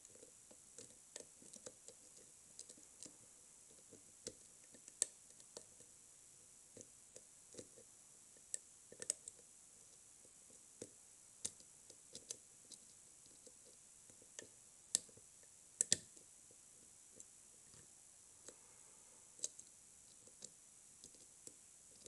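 Faint, irregular metallic clicks and ticks of a hook pick working the pins of a Russwin pin-tumbler cylinder held under tension, during single-pin picking. A few sharper clicks stand out, two close together about 16 seconds in.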